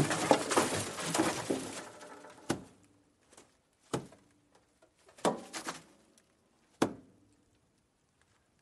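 Rabbit sounds: dense rustling and scratching for the first two seconds or so, then a handful of sharp, separate knocks spaced a second or more apart.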